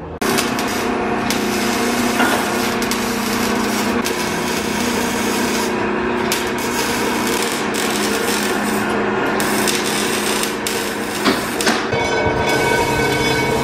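A power tool cutting and grinding metal exhaust pipe: a continuous harsh grinding hiss with a steady motor whine underneath, starting abruptly.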